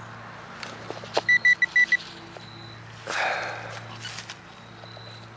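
Metal detector giving five quick, high, identical beeps about a second in. A brief rustle follows around three seconds in.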